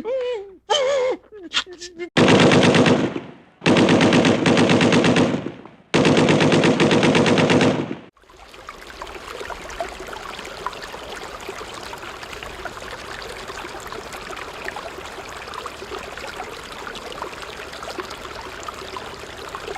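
Three bursts of rapid automatic gunfire, each lasting about two seconds, as from a machine gun. A quieter, steady crackling noise with scattered small clicks follows and carries on to the end.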